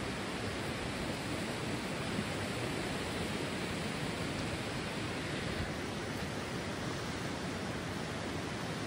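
Steady rushing of a shallow hot-spring stream flowing over river stones.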